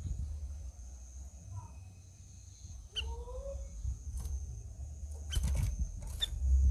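Caged cucak rawis songbird calling sparsely: a short note, then two rising whistled notes about three seconds in, with sharp clicks and taps scattered through the second half.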